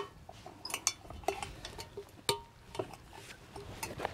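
Scattered metal clinks and knocks of steel parts as a lug wheel is worked onto a walk-behind tractor's axle and its pin pushed into a tight hole, with a sharper ringing clink about two seconds in.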